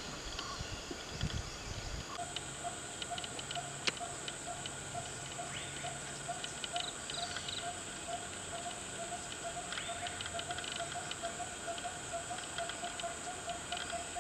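Tropical forest ambience of insects and birds: a steady high insect drone that grows louder about two seconds in, a low note repeating on and on, and scattered short chirps, with one sharp click about four seconds in.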